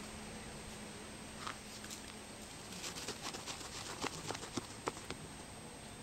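A dachshund mix digging into a mole hole, its paws scratching and scraping at dry soil and grass in short, irregular strokes, with a quick flurry of scratches in the second half.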